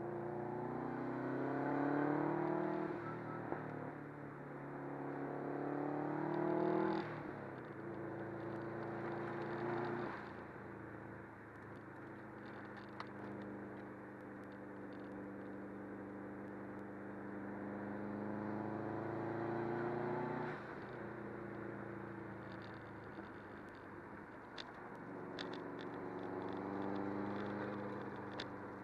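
Subaru WRX's turbocharged flat-four engine heard from inside the cabin, its revs climbing and then falling away abruptly about four times, over steady road and tyre noise.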